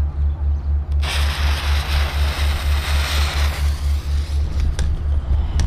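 A low machine hum pulsing about five times a second, with a loud hiss about a second in that lasts roughly three seconds, and a few sharp clicks near the end.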